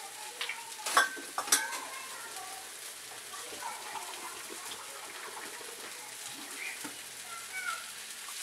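Sprouted moth beans and onion-tomato masala sizzling steadily in a kadhai, with two sharp clicks about a second in.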